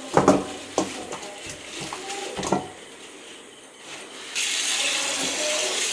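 Black plastic bag rustling and raw chicken pieces dropping into a steel bowl with several sharp knocks. About four seconds in, a tap turns on and water runs steadily into the bowl.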